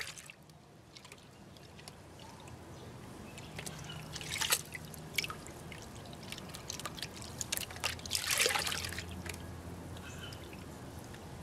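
Muddy water sloshing in a plastic gold pan and pouring off its rim into a tub of water as a crushed-rock sample is panned for gold, with louder splashes about four seconds in and again about eight seconds in.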